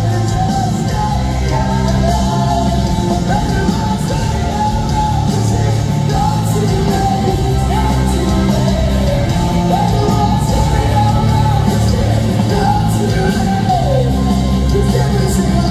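Rock band playing live, loud and continuous: electric guitars and drums, with a male lead singer singing over them.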